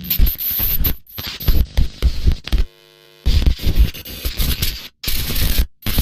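Glitch and TV-static sound effect: harsh, choppy bursts of distorted noise broken by short dropouts, with a brief quieter buzz about three seconds in.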